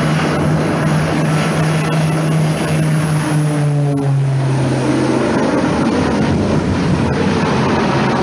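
Propeller aircraft engines droning steadily, with a low hum that drops a little in pitch about four to five seconds in.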